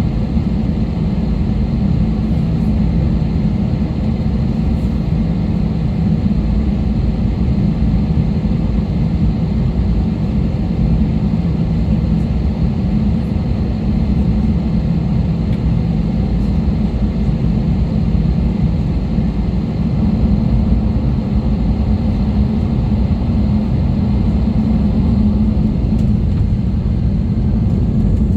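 Passenger airliner cabin noise during takeoff: a loud, steady low rumble of engines and rushing air.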